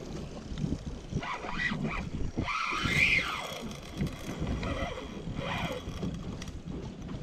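Wind buffeting the microphone over sea water washing against a boat's hull as a spinning reel is cranked. A few brief pitched vocal sounds come about a second and about three seconds in.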